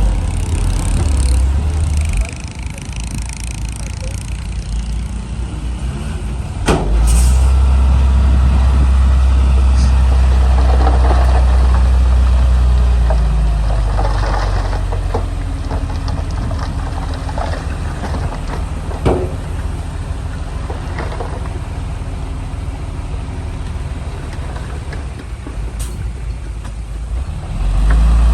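Komatsu D31 bulldozer's diesel engine running under changing load, swelling to a heavy rumble for several seconds and then easing back, while the dozer pushes dirt. A few sharp metallic clanks and some rattling come through over the engine.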